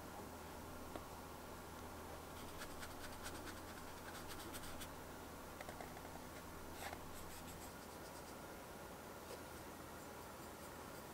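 Round watercolour brush stroking paint across paper: a faint, scratchy brushing with a few light ticks.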